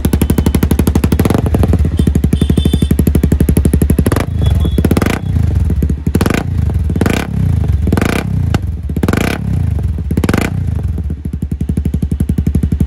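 Honda CBR250R's single-cylinder engine running through a hand-held Akrapovic carbon slip-on muffler. It idles with a rapid, even exhaust beat, is blipped about eight times in quick succession from about four seconds in, and settles back to idle near the end.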